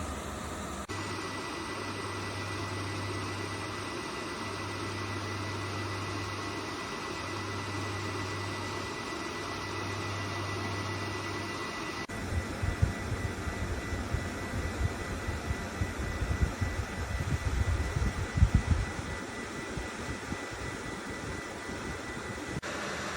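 YIBEST 1300 W dual-motor ceramic fan heater running, its fans giving a steady rush of air with a faint high whine. About halfway through, irregular low rumbling and thumps join it.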